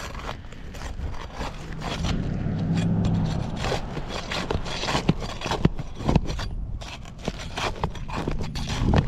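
Tool scraping and prying under brittle asphalt roof shingles, with many irregular clicks and crackles as the shingle is worked loose. A low hum comes in briefly about two seconds in.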